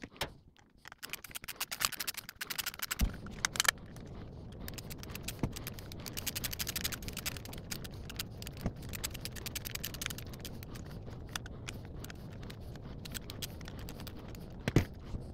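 Screwdriver turning the mounting screws of a light switch into a metal electrical box: quick runs of light metallic clicks, rattles and scrapes, busiest in the first few seconds, then occasional ticks over a faint steady low hum.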